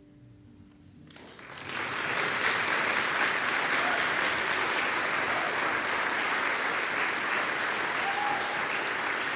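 The last acoustic guitar chord dies away. About a second in, the audience breaks into applause, which swells quickly and carries on steadily.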